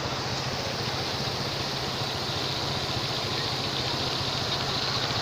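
Steady rushing of floodwater flowing over a submerged road, with a constant low hum underneath.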